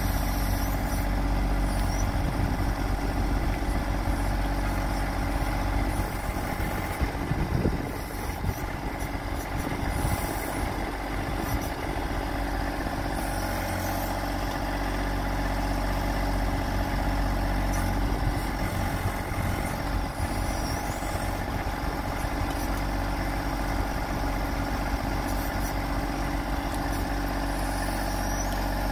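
John Deere 2025R compact tractor's three-cylinder diesel engine running steadily while the 260B backhoe's hydraulics swing and lower the boom and bucket. The engine's level dips briefly about eight seconds in.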